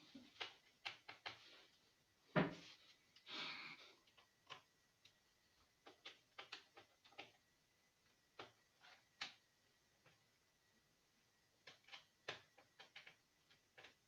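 Irregular small clicks and taps of hands handling laptop parts, with one louder knock about two and a half seconds in and a short scrape just after it.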